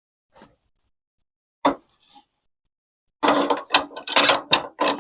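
A metal mechanism is worked by hand, clanking and ratcheting. There is a single sharp knock about a second and a half in, then a quick, irregular run of clanks near the end.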